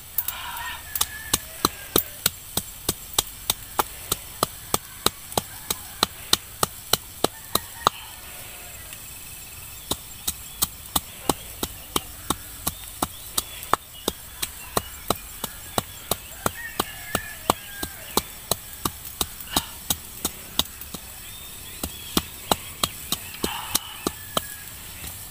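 A wooden pestle pounds green chilies and herbs in a small bowl, a steady run of dull knocks about two to three a second that breaks off briefly a few times.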